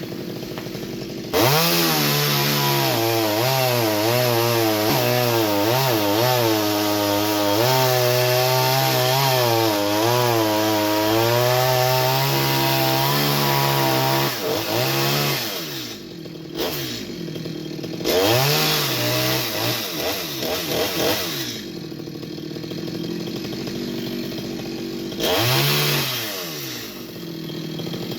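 Chainsaw idling, then revved to full speed about a second in and held there for about 13 s with its pitch wavering as it labours through wood. It then drops back to idle and is revved briefly twice more before settling to idle.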